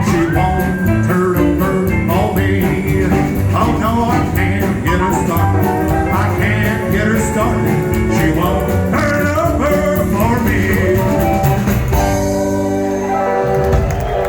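Live band playing an up-tempo rock and roll number with guitar, closing on a long held chord about twelve seconds in.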